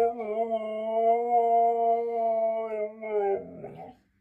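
Siberian husky howling: one long howl held at a steady pitch, which wavers and breaks up near the end before stopping.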